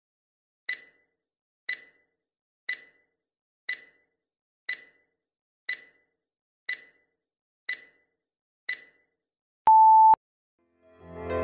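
Countdown timer sound effect: nine sharp ticks, one a second, then a single short beep as the count reaches zero.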